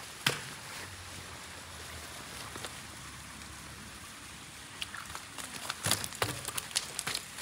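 Shallow stream water running steadily over stones. There is a sharp knock just after the start, then a quick run of clicks and clatters on the pebbly bank about six to seven seconds in.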